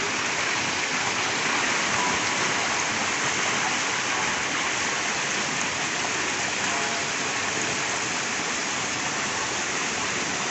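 Steady rush of water pouring from fountain jets and splashing into a swimming pool.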